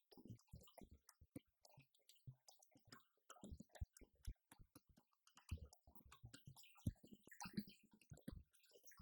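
Roland TD-50X electronic drum kit being played, faint: quick, irregular drum hits with deep kick-like thumps among them.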